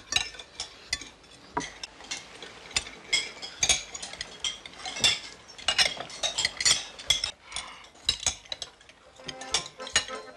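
Knives and forks clinking and scraping on plates as several people eat at a table: a steady run of small, irregular clicks and clinks.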